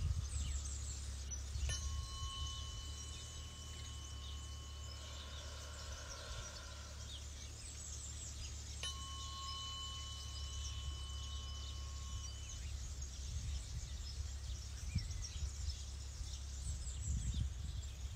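Tuning fork struck twice, about two seconds in and again about nine seconds in; each strike is a light tap followed by a clear, steady high ring that fades out over several seconds.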